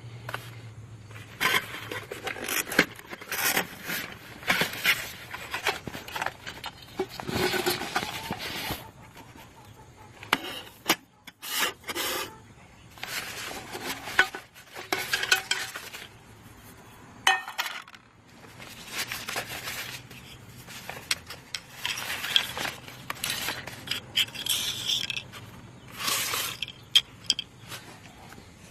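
Nylon storage bag rustling and scraping while aluminium camping cookware is unpacked by hand. Irregular rubbing and scraping, with occasional light clinks of the metal pots and pans knocking together.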